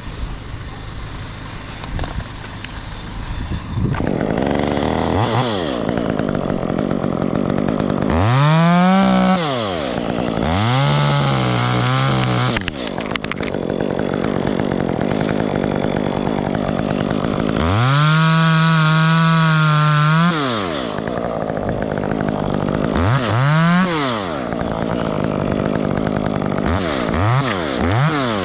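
Two-stroke chainsaw idling, then revved up repeatedly to high speed and held there for a few seconds at a time, the pitch sagging as if under load in a cut. The longest hold comes about two-thirds of the way through, and there are several quick throttle blips near the end.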